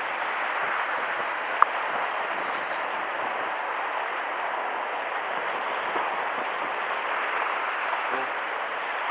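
Steady hiss of sea surf washing against the rocks below, with one small click about one and a half seconds in.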